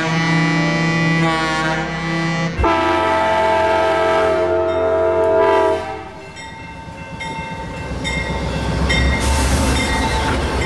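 Diesel locomotive air horns sounding long chords, with a cut to a second horn blast about two and a half seconds in. From about six seconds in, a grade-crossing bell rings in short repeated strokes while an Amtrak GE P42DC-hauled passenger train approaches and passes, its engine and wheels rumbling louder toward the end.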